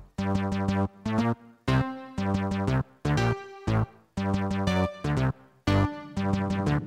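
Electronic background music: synthesizer chords played in short stabs with brief gaps between them.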